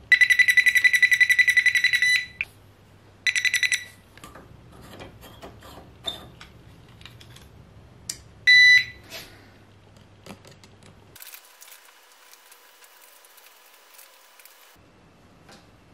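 An electronic beeper sounds a rapid, pulsing high beep for about two seconds, again briefly about three seconds in, and once more, shorter, past the middle. Faint scattered clicks and knocks fill the gaps.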